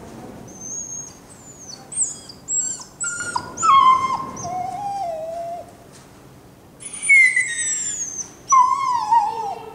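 A dog whining and yelping in many high-pitched, sliding cries, with a short pause about two-thirds of the way through before louder cries resume.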